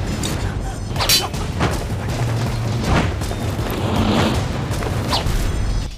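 Dramatic action score over a heavy low rumble, punctuated by several sharp fight sound effects: hits and swishes.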